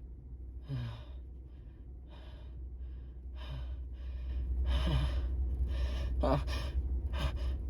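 A person's quick, gasping in-breaths, a dozen or so in a row about every half second, some with a slight catch of voice, getting louder from about halfway through: the hitching build-up before a sneeze.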